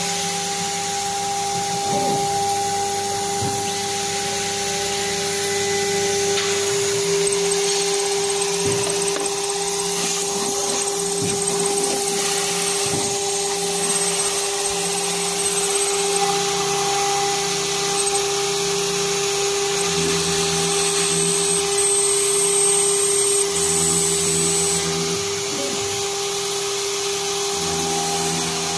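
Water-cooled spindle on a CNC router running at a steady high-pitched whine while milling aluminum. Lower machine tones shift in pitch every few seconds as the machine moves, with scattered short ticks from the cut.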